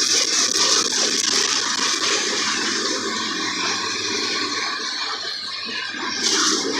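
Mercedes-Benz OF-1721 Euro 5 bus running: a steady engine drone under a strong rushing hiss, with a brief swell of hiss near the end.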